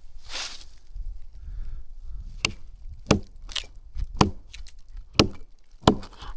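An axe stuck fast in a log being knocked loose with a hammer: about six sharp wooden knocks, roughly half a second to a second apart.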